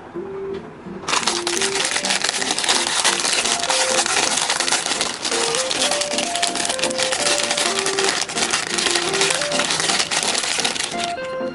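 Close-up crinkling and crackling of plastic packaging being handled and unwrapped. It starts about a second in and stops just before the end, over light background music with a simple melody.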